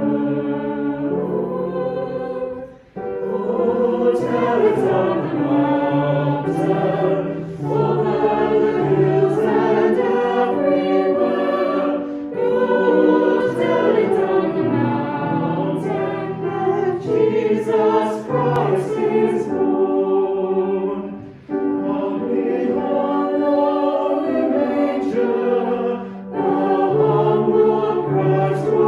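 Choir singing a sacred song in long, held phrases, with brief breaks between phrases a few seconds in, about two-thirds of the way through and near the end.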